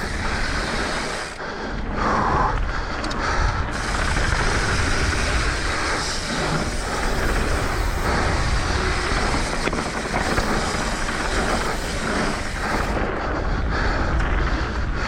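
Wind rushing over an action-camera microphone and mountain-bike tyres rolling fast on a dirt trail, with the bike rattling over bumps. The noise runs steady and loud, with short knocks scattered through it.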